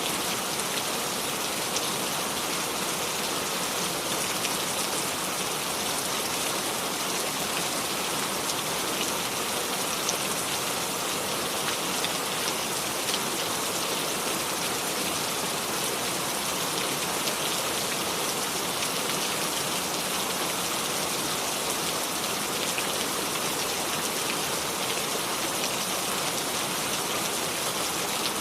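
Steady rain falling, an even hiss with fine patter of drops and no thunder.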